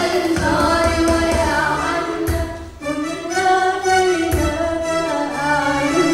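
A group of girls singing a traditional Palestinian song together, with electronic keyboard accompaniment and a low beat underneath. The melody wavers and ornaments, with a brief break between phrases about halfway through.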